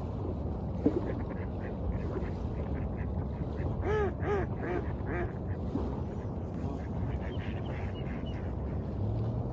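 A duck quacking, with a quick run of about four quacks near the middle and a few fainter calls before and after, over the steady low rush of waves.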